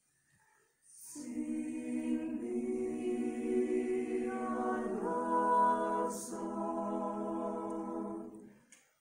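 Mixed choir singing a slow phrase of long-held chords. The voices come in after about a second of quiet, move up to a fuller, louder chord about halfway through, and release together shortly before the end.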